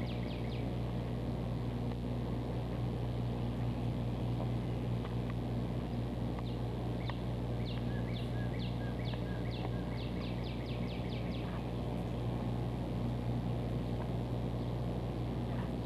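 Street ambience: a steady low mechanical hum, with several short runs of rapid high chirps over it.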